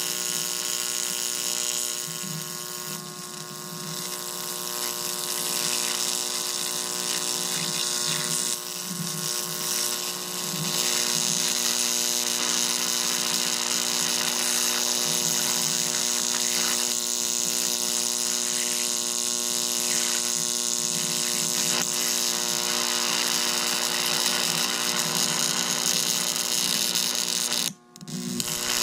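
A 12,000-volt electric arc playing on both ends of a battery, giving a steady electrical buzz with hiss over it. It cuts out for a moment near the end.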